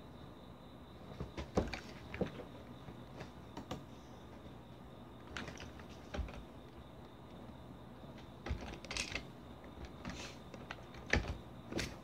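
Computer keyboard being typed on: key clicks in short, irregular bursts of a few strokes each, with pauses of a second or so between the bursts.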